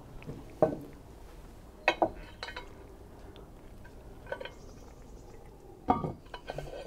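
Cast-iron Dutch oven and its lid clinking and knocking: about five short, separate metal clinks a second or so apart.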